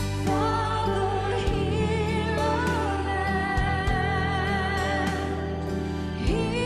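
Gospel-style worship music: a singing voice with vibrato over long, sustained low notes, the bass changing chord a couple of times.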